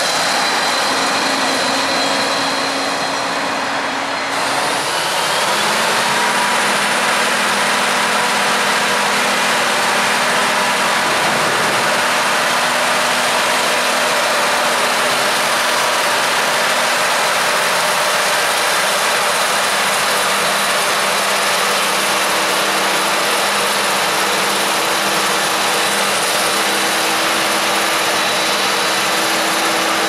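Road traffic and a forage harvester passing on the road for the first few seconds, then a cut to a Claas Jaguar 970 self-propelled forage harvester chopping maize beside a tractor and trailer: a loud, steady machine drone with a constant hum.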